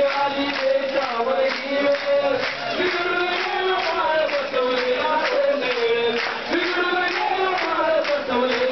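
Many voices singing a devotional chant in unison, long held notes gliding slowly up and down over a steady percussive beat.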